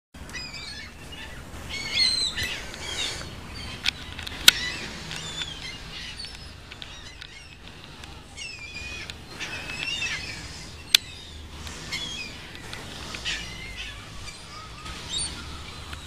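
A large flock of seagulls calling, many gliding calls overlapping, over a steady low rumble. Two sharp clicks stand out, one about a third of the way through and one about two-thirds in.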